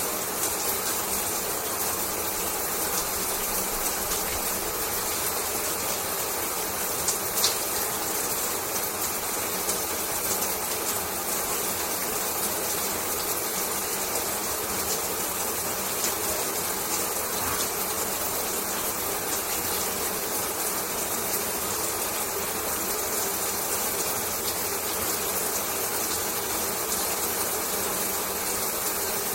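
Shower water spraying steadily, an even hiss without change, with a single short click about seven seconds in.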